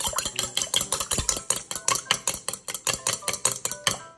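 Chopsticks beating eggs in a stainless steel bowl: quick, even clicking of the sticks against the metal, about seven strokes a second, stopping near the end.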